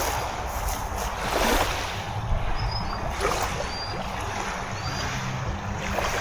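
Lakeshore ambience: water lapping and wind on the microphone, with a few faint high chirps.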